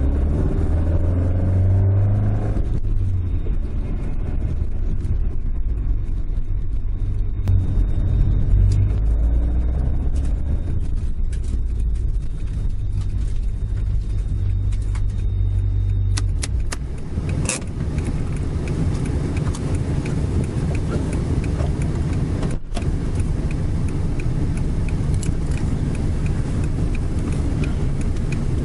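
Toyota AE86's 5-valve 4A-G four-cylinder engine heard from inside the cabin, pulling while the car drives. About halfway through it drops to a steady idle, with a regular light ticking over it.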